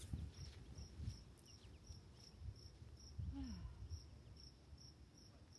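A cricket chirping faintly and steadily, short high chirps about twice a second, over a faint low rumble.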